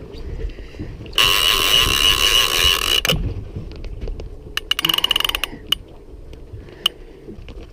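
Heavy conventional big-game fishing reel ratcheting while fighting a hooked bull shark: a loud, fast buzzing run of clicks lasting about two seconds as the spool turns, then a shorter, uneven burst of clicks and a few single clicks.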